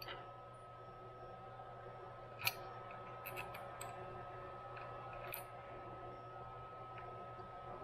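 Light metallic clicks and scrapes of a hex key turning M5 bolts into a bearing block on a mill's ball-screw housing, one sharper click about two and a half seconds in, over a steady hum.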